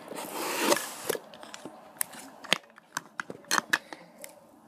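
Handling noise: a brief rustle, then about half a dozen sharp clicks and taps of small plastic lip balm tubes and tins being handled.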